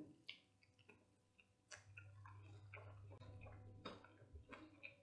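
Faint, close-up chewing of a crunchy Flaming Hot Cheetos–crusted fried chicken wing: scattered soft crackles and clicks.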